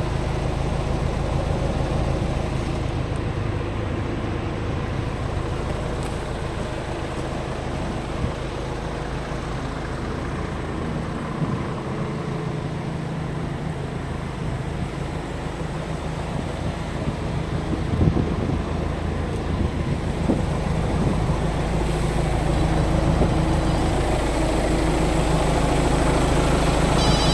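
Mercedes-Benz Atego truck's diesel engine idling steadily, with one brief knock about two-thirds of the way through.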